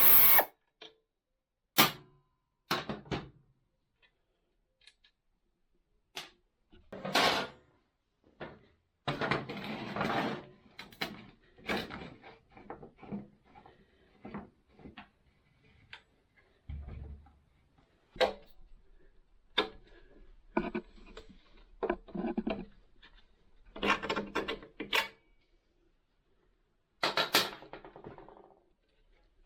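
Hand tools and metal parts clinking and clattering as a small motorcycle is taken apart: scattered clicks, knocks and short rattles with quiet gaps between them.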